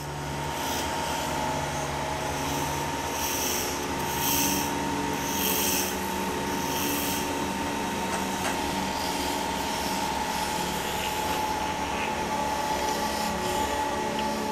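Workshop machinery running with a steady hum, and repeated rasping scrapes of a hand tool against wood spinning on a lathe during the first seven seconds or so.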